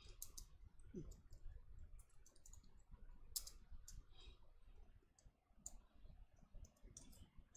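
Faint, irregular clicks of computer keyboard keys being typed.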